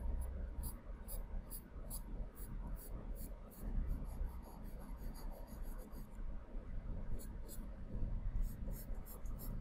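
Charcoal pencil hatching on drawing paper: a run of quick, scratchy strokes with a short pause about six seconds in.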